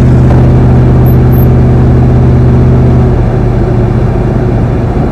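Square-body Chevy pickup engine and exhaust heard loudly from inside the cab while driving, a steady low drone; about three seconds in its note changes, as with a shift or a change of throttle.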